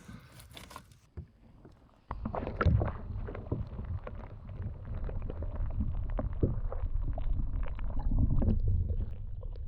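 Water sloshing and small knocks and clicks against a kayak, over a steady low rumble that begins about two seconds in.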